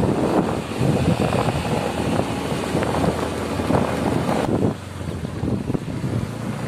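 Wind rushing over the microphone of a moving motorcycle, with the engine and tyre noise underneath. The rush eases off about two-thirds of the way through.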